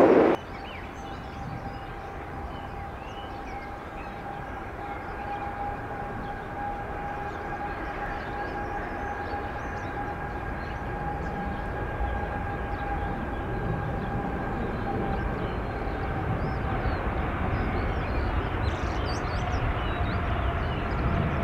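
A loud jet departure cuts off sharply a moment in. Then a Boeing 777-300ER's GE90 turbofans run at takeoff thrust: a steady whine with two held tones over a low rumble, growing slowly louder as the aircraft rolls down the runway toward rotation, the tones dipping slightly near the end.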